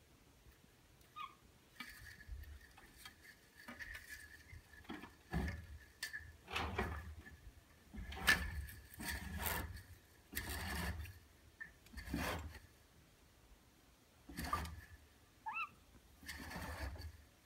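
Wooden venetian blind slats knocking and rustling against one another as a cat pushes along the windowsill behind them, in irregular bursts about a dozen times.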